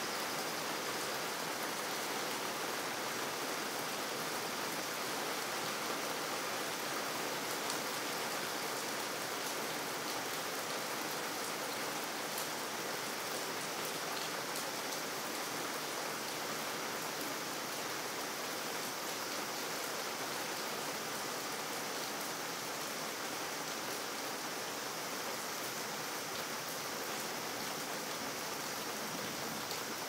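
Steady rain falling on wet pavement: an even hiss with faint scattered ticks of drops.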